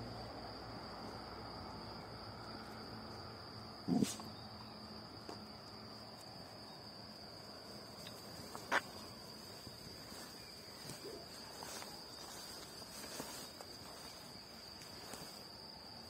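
Insects trilling: one steady, high-pitched trill that does not let up. Two short, sharp sounds stand out above it, about four seconds and about nine seconds in.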